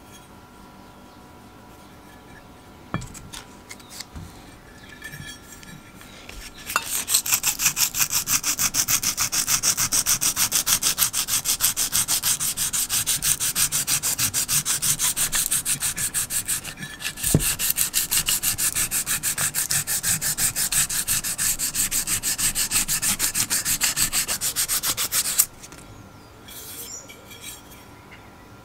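Hand sanding the bare aluminium housing of a vintage Stanley electric drill: rapid, even back-and-forth rubbing strokes. They start several seconds in, break off briefly with a knock about halfway, and stop a few seconds before the end. Light handling clicks come before the sanding.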